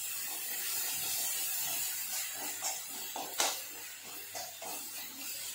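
Steel spoon stirring and scraping mawa and chopped nuts in a nonstick kadai, over a faint steady hiss, with a few sharper scrapes against the pan in the second half.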